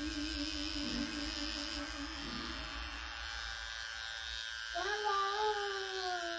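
A steady electrical buzz made of several fixed tones, as from a small motorised appliance. A drawn-out voice, falling in pitch, joins it about five seconds in.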